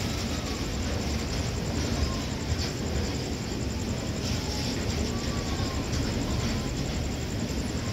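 Diesel locomotive TPI no. 70110 running with a steady low rumble, heard from a distance down the line.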